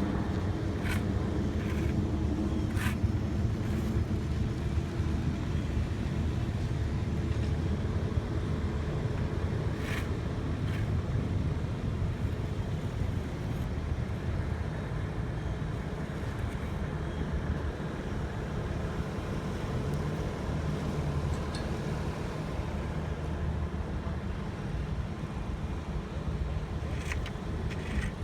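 Engines of asphalt paving machinery running steadily in a low rumble, with a few sharp clicks or knocks.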